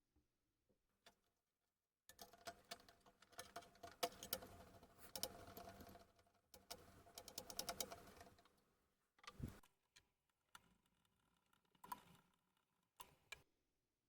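Irregular clicking, tapping and rattling of small hard objects being handled at a workbench, busiest in the first half, with one heavier knock about halfway through and a few scattered clicks near the end.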